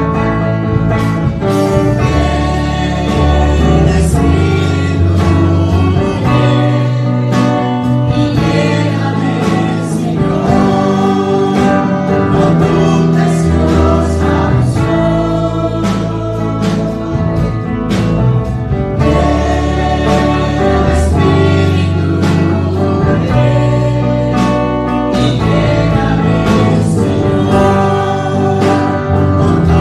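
Congregational worship song: a young woman singing the lead into a microphone, with a man singing along, over band accompaniment with bass notes and a steady beat.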